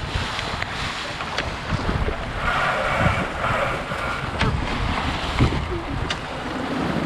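Wind buffeting the microphone and water rushing along the hull of a Flying Scot sailing dinghy under sail in a fresh breeze, with a few sharp clicks.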